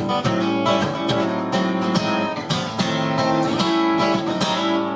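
Acoustic guitar strumming the closing chords of a song, then a final chord struck near the end and left to ring.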